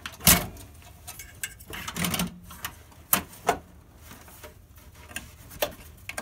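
Scattered clicks and knocks of a hard drive in its tool-less bracket being fitted into a desktop PC's metal drive bay, with its cables being handled. The loudest knock comes a fraction of a second in, a small cluster about two seconds in, and single clicks follow.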